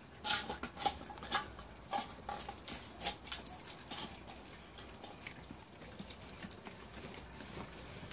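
Puppy moving about on concrete paving slabs: irregular light clicks and scuffs, most of them in the first half, fewer and fainter later.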